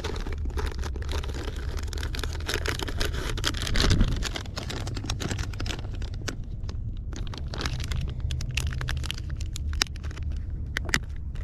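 Plastic bait packages crinkling and rustling as soft-plastic lures are pulled from a bait binder, many short crackles and clicks over a steady low rumble.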